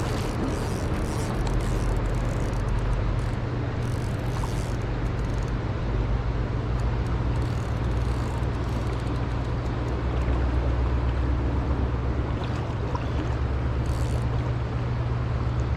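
Steady rushing of a river current with a constant low rumble underneath, and a few faint brief ticks.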